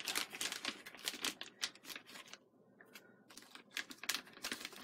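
Small clear plastic bag of screws crinkling and crackling as it is handled, a rapid run of crackles with a brief lull about halfway through.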